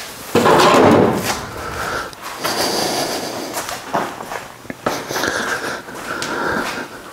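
Someone moving about a workshop and fetching a pair of pliers: footsteps and handling noise, with a loud clatter about half a second in and scattered knocks after it.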